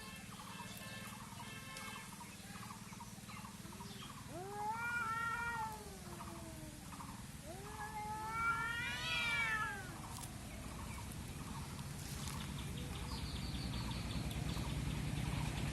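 Cats yowling at each other in a fight standoff: two long caterwauls that rise and fall in pitch, one about four seconds in and a louder, higher one about eight seconds in. A steady low hum builds near the end.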